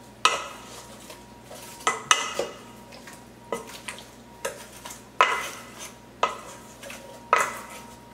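Wooden spoon stirring oiled, salted chicken wings in a stainless steel mixing bowl, the spoon knocking against the side of the bowl about once a second with a brief metallic ring.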